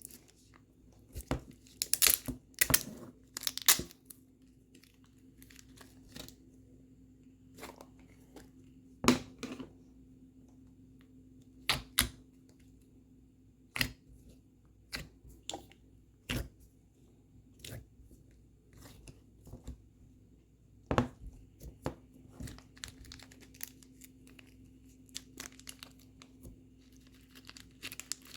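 Slime being played with by hand, giving irregular sharp clicks and pops as it is poked, stretched and squeezed.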